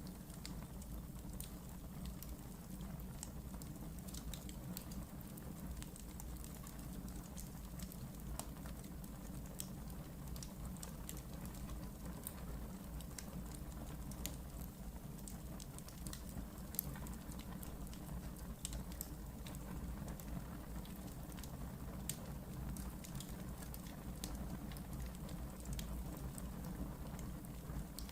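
Wood fire burning in a fireplace: a steady low rumble of flames with frequent small crackles and pops, one sharper pop about seventeen seconds in.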